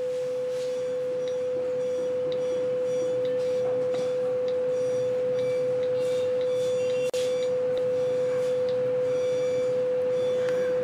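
A steady electronic tone held at one mid pitch, briefly cutting out about seven seconds in.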